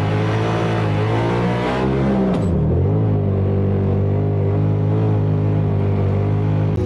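Off-road vehicle engine running steadily while driving over sand dunes. Its drone dips in pitch about two and a half seconds in, then settles at a steady note.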